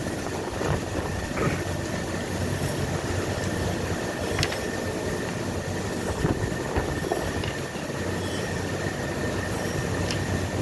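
Steady mechanical hum with a thin high whine, like a running fan or machinery, with a few light clicks as small plastic connectors are handled.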